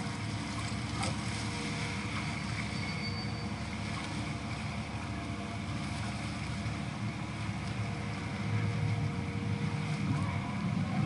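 Canal tour boat under way: its engine running with a steady low rumble over a haze of water and wind noise, growing a little louder near the end.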